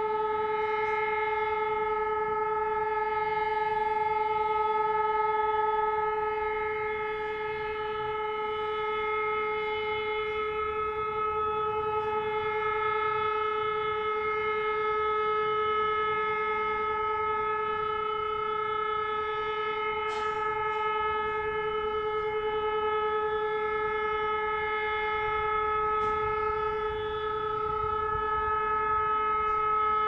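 Civil-defence air-raid siren sounding one steady, unbroken tone for a training alert, swelling and fading slightly in loudness.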